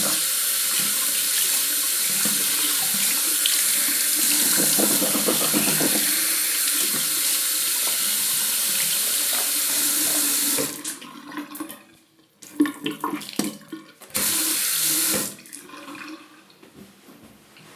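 Bathroom sink tap running steadily for about ten seconds, with water splashing in the basin, then turned off. Small splashes and knocks follow, then a second short run of the tap lasting about a second, and fainter splashes near the end.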